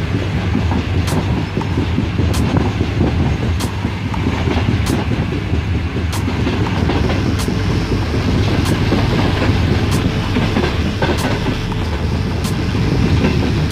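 Pakistan Railways Green Line passenger train running, heard from inside the carriage: a steady rumble of the wheels on the track, with a light tick about every second and a quarter.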